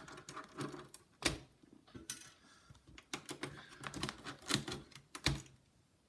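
Irregular small clicks and taps of a precision screwdriver and the laptop's plastic parts being handled during disassembly, with two sharper knocks, one about a second in and one near the end.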